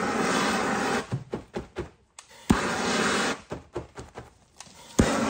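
Hand-held gas torch heat-welding boat shrink wrap: its flame runs in short bursts of about a second, three times, each opening with a sharp click, with irregular crackles between the bursts.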